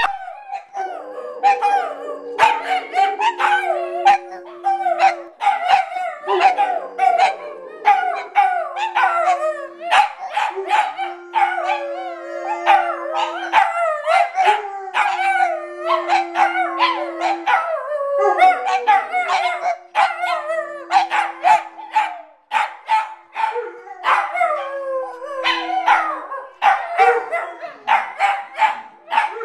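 Dogs howling over and over in long, wavering howls, broken by sharp yips and barks.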